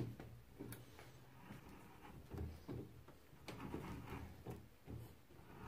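Faint metal handling sounds from a hand threading die in its die stock, fitted onto a steel rod held in a vise: scattered clicks and light knocks, with no steady cutting noise.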